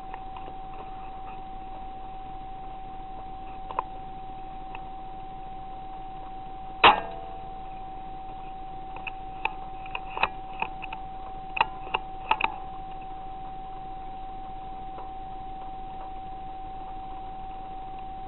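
Steady high electronic whine from a night-vision scope recorder. About seven seconds in comes one sharp click with a short ring, and a run of smaller clicks and taps follows between about nine and twelve and a half seconds, as the rifle and scope are handled.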